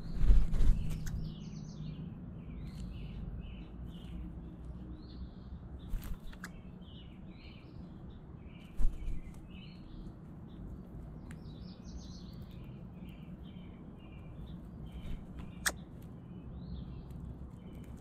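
Small backyard songbirds chirping and twittering almost without a break, over a steady low background rumble. A few short knocks stand out, the loudest about half a second in and another about halfway through.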